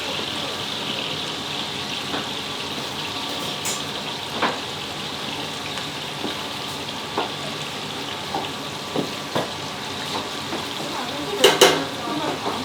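Crispy beef patties frying in oil with a steady sizzle, with scattered light knocks throughout and a louder clatter of two quick knocks near the end.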